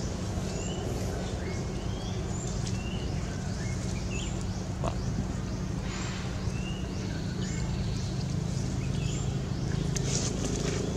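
A bird gives short, repeated chirps about once a second over a steady low engine-like hum, with a few sharp clicks near the end.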